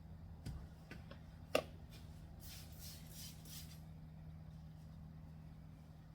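Interior glass being cleaned: a few light knocks, the sharpest about one and a half seconds in, then four or five short hissing strokes in quick succession, over a steady low hum.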